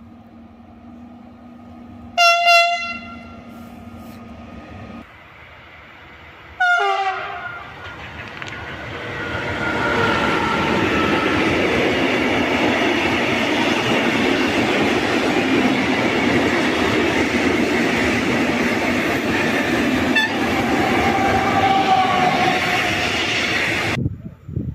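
Two short electric locomotive horn blasts a few seconds apart, the second falling in pitch, then a freight train of tank wagons passing close, its wheels rumbling and clattering steadily over the rails.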